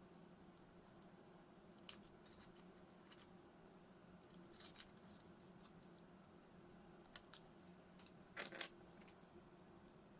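Faint scattered clicks and small scrapes of small parts and tools being handled, with a short louder scrape about eight and a half seconds in, over a low steady hum.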